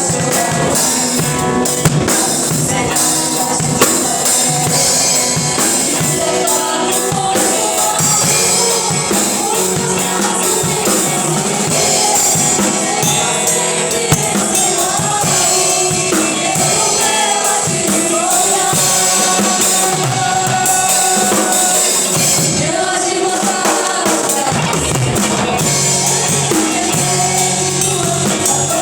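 Live church worship music: a band with drums playing under singing.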